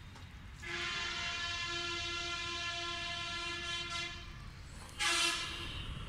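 A horn sounds one long, steady note for about three seconds, then a shorter, louder blast about a second later.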